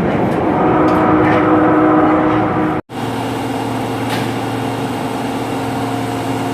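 Osaka Metro 22 series subway train's horn, one of the cars with an odd-sounding horn, held as a chord of several steady tones over train noise. It cuts off abruptly about three seconds in, and a second long, steady blast follows straight after.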